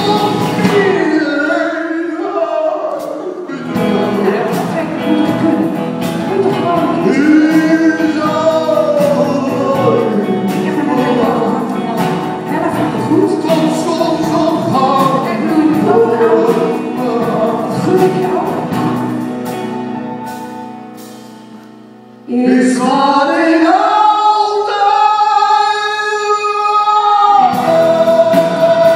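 Live duet of a man and a woman singing a love song with a small band of double bass, electric guitar, drums and keyboard. About two-thirds of the way through the music fades almost away, then comes back suddenly with a long held note sung together for about five seconds, followed by another held note.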